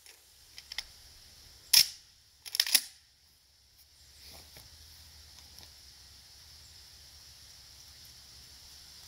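Sharp mechanical clicks and clacks: two light clicks, then a single loud clack a little under two seconds in and a quick rattle of clacks about a second later.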